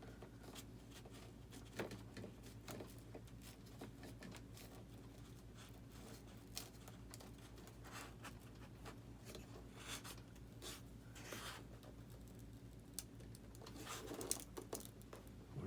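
Faint, scattered scratching and clicking of hands working on a foam RC model jet, over a steady low hum.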